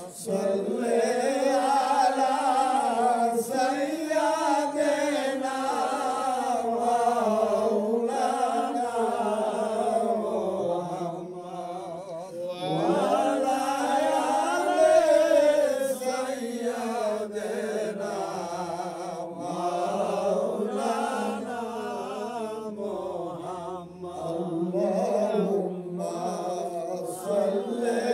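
A man chanting a slow, drawn-out Sufi devotional call, holding long notes that waver and glide up and down, with short pauses for breath about twelve and twenty-four seconds in.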